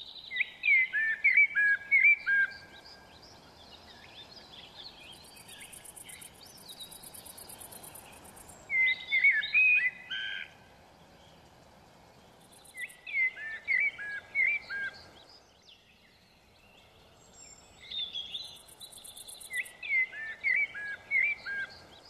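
A songbird singing in four bursts of quick, clear whistled notes that step down from high to lower pitch. A faint, high, fast-pulsing buzz comes in between the bursts, over a low steady background noise.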